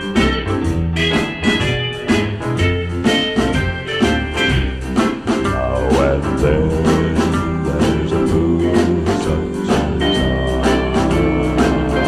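Instrumental introduction of a recorded country-style ballad: guitar and bass over a steady beat.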